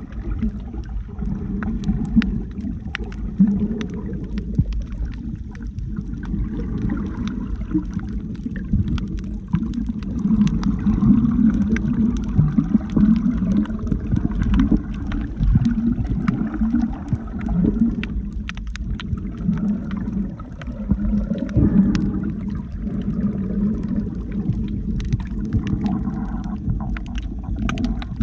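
Underwater sound picked up by a camera while snorkeling: a muffled, fluctuating low rumble of moving water with scattered sharp clicks.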